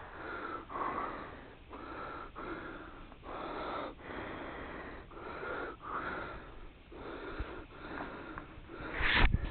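A motorcyclist breathing hard close to a helmet-mounted microphone: quick, even breaths, about one and a half a second, from exertion, with a louder breath near the end.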